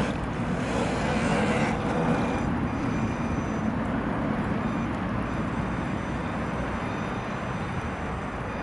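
Wind buffeting the microphone as a steady low rumbling noise, with a faint steady high whine from about two and a half seconds in.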